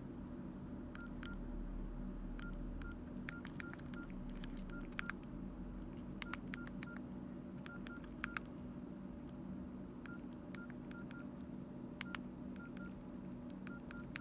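Nokia N82 keypad beeps as keys are pressed: short high beeps, each with a sharp key click, in quick irregular runs of two to four, over a faint steady hum.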